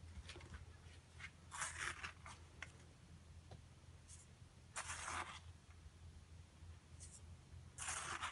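Crushed glass frit spooned into a metal bowl on a scale: three short, gritty pours about three seconds apart, with small spoon clicks between them over a low steady hum.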